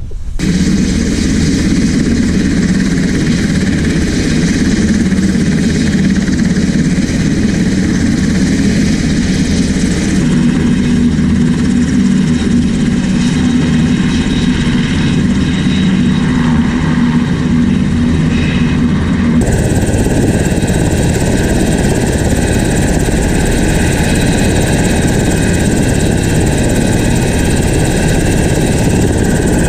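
Steady running of a UH-60 Black Hawk helicopter's engines and rotor. The sound changes abruptly about two-thirds of the way in.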